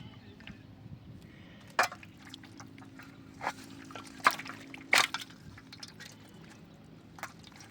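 Water splashing in about five short, sharp splashes over a quiet background, the loudest two close together midway through.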